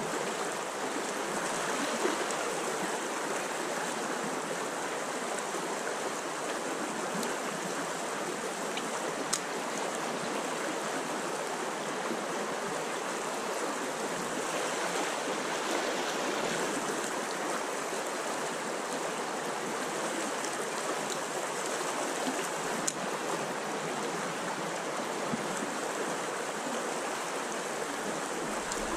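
A shallow trout stream flowing, a steady rush of moving water.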